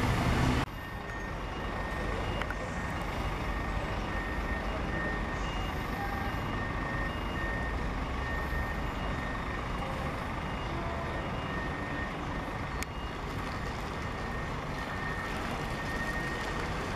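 Reversing alarm of a Scania coach beeping repeatedly, a little under once a second, over the steady low running of its diesel engine as it backs out of its bay. A louder engine sound breaks off abruptly within the first second.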